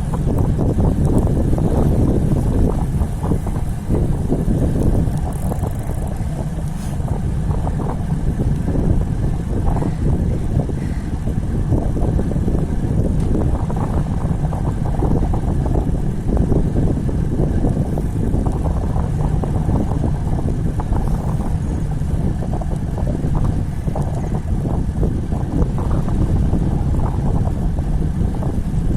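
Strong wind buffeting the microphone of a camera on a moving road bicycle, a steady low rumble with no clear events.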